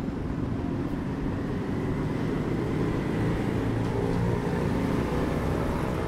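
Street traffic going past: a steady din of car engines and tyre noise, with one vehicle's engine coming through a little louder about halfway through.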